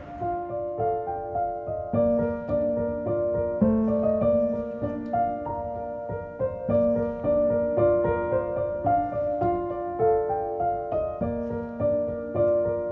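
Background music: a gentle piano melody, note after note at an even pace.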